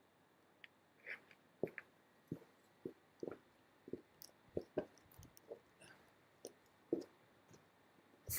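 A series of faint, short clicks and knocks at irregular spacing, about two a second.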